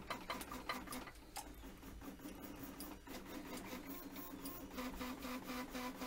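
3D printer stepper motors making a faint, steady whine through a run of short jog moves, with frequent small clicks over it.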